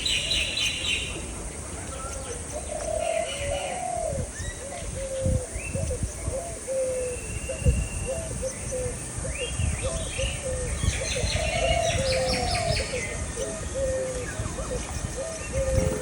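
Wild birds calling: a long run of short, low notes repeated in quick succession, with bursts of higher chirping from other birds.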